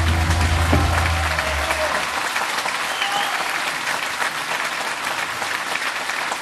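Large audience applauding, with the band's last held chord dying away in the first second and a half.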